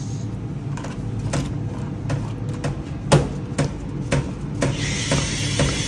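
Metal spoon stirring a bucket of thick garlic mayonnaise, knocking and scraping against the plastic bucket at irregular intervals, over a steady low hum. A steady hiss comes in about five seconds in.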